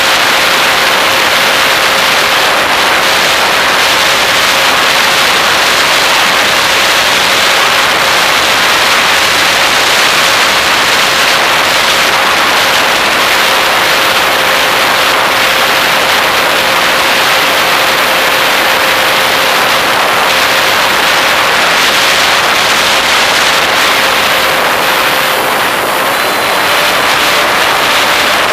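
RC model airplane's motor and propeller running steadily in flight, heard from the onboard camera as a loud rushing wind noise with a thin steady whine. The whine's pitch shifts slightly near the end as the throttle changes.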